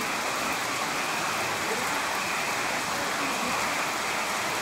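Steady rain falling on garden plants and muddy, puddled ground: an even, unbroken hiss.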